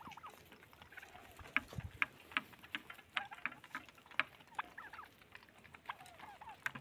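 Flock of domestic turkeys foraging: scattered short, sharp clicks with a few soft, wavering calls among them.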